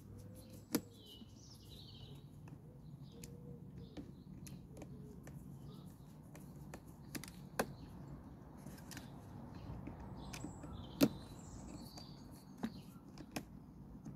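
A few scattered sharp clicks of a hand tool on the Flymo mower's motor-mount bolts as they are tightened, the loudest about eleven seconds in, over faint birdsong.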